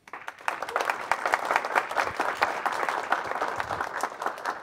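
An audience applauding: many hands clapping, swelling within the first second, holding steady and thinning out near the end.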